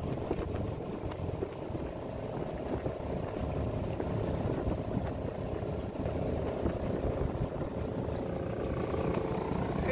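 Boat engine running steadily while under way, a continuous low rumble with a faint steady hum.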